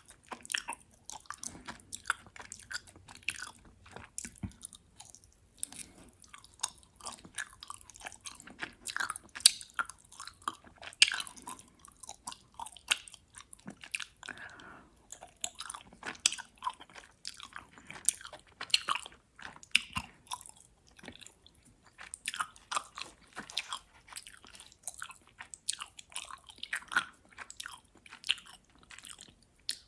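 Close-up chewing of gummy worms: a steady run of sticky, wet mouth clicks and smacks, several a second, as the chewy candy is worked between the teeth.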